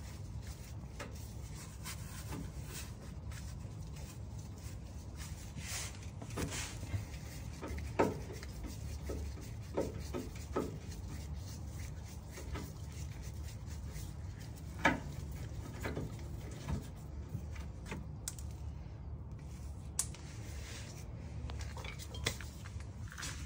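Small clicks, scrapes and rubbing of a screwdriver backing out a metal Phillips screw and of hands working the plastic underbody shield, over a low steady hum. Two sharper knocks stand out, about eight seconds in and again near fifteen seconds.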